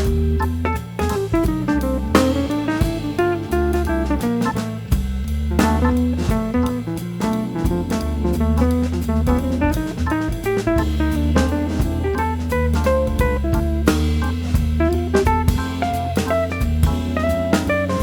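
Background music: an instrumental track with guitar, bass and a drum kit keeping a steady beat.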